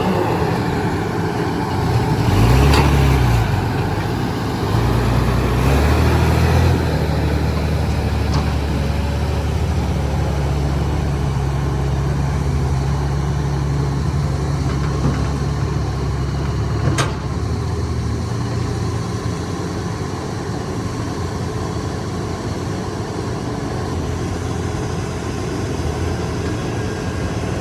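Heavy machine's engine running, revving up twice in the first several seconds and then holding a steady note. A single sharp knock comes about 17 seconds in.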